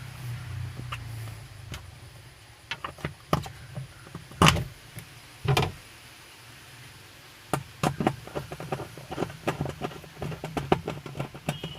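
Washing machine pulsator being set back onto its shaft in the wash tub and its screw fitted: scattered clicks and knocks, two heavier knocks near the middle, then a quick run of irregular clicks.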